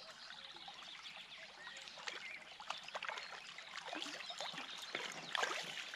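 Irregular splashing and sloshing of shallow river water while a hooked asp is played in close on a spinning rod.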